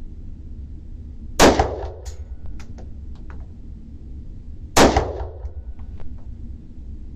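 Two gunshots about three and a half seconds apart, each with a short echo, and lighter clicks and clinks between them.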